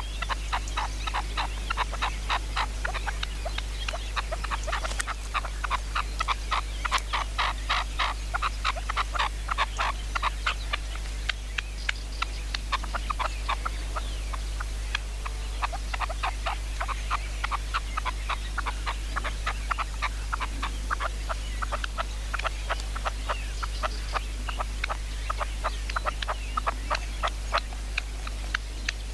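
Red-legged partridges calling: a long run of quick, harsh clucking notes, several a second, coming in thick spells with short lulls.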